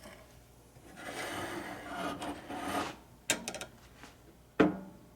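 Handling of dishes and utensils for a meal: about two seconds of rubbing and scraping, then a quick cluster of sharp clicks and a single sharp knock with a brief ring near the end.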